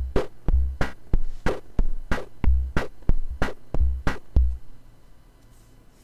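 Bastl Kastle Drum playing a rhythmic pattern of sharp clicky hits with deep low thumps among them, its drum modulation sequenced by a Korg SQ-1. The pattern stops about four and a half seconds in.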